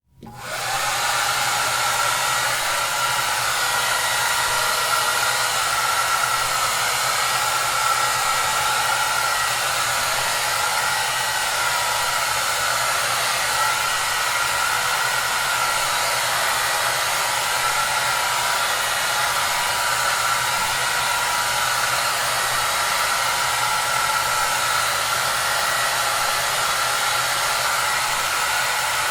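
Electric hair dryer running steadily, a dense airy rush with a faint steady whine in it. It fades in out of silence within the first second.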